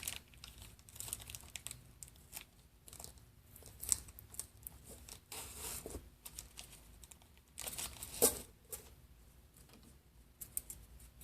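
Packaging of a pack of reciprocating saw blades being torn open and handled: intermittent crinkling and tearing rustles with a few sharp clicks, the loudest about four and eight seconds in.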